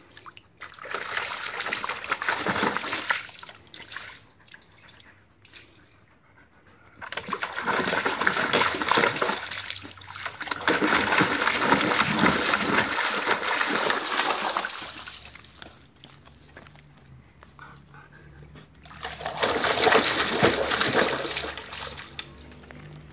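A Siberian husky pawing and splashing water in a small, shallow plastic tub, in three bouts of splashing with quieter pauses between.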